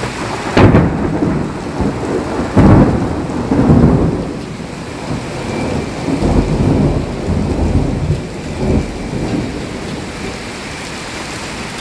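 Heavy rain falling steadily in a storm, with loud low rumbles that come and go several times; the loudest are about half a second and two and a half seconds in.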